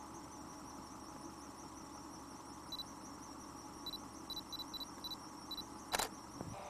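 Canon DSLR's autofocus confirmation beeps, short high beeps heard about seven times in quick succession, then one sharp shutter click near the end. A steady, quiet insect trill runs behind.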